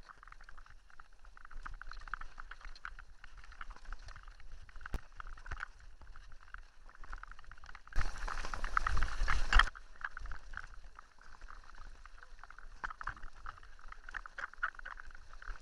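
Mountain bike riding over a gravel dirt track: tyres crunching over loose stones and the bike and its handlebar mount rattling with many small clicks. About eight seconds in, a louder rush of noise lasts under two seconds and then cuts off.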